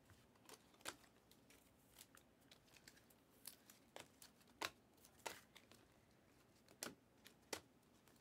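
Faint, irregular clicks and light swishes of glossy trading cards being slid one by one off the front of a hand-held stack, roughly one or two a second.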